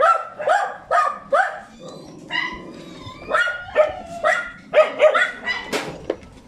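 Penned shelter dogs barking repeatedly, about a bark every half second, with a short lull about two seconds in before the barking picks up again.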